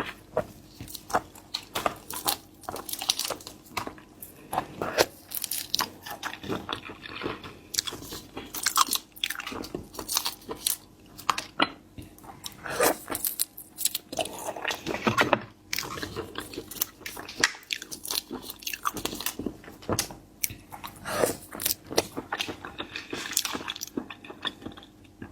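Close-miked chewing and biting of seafood, with many short wet crunches and smacks at an irregular pace.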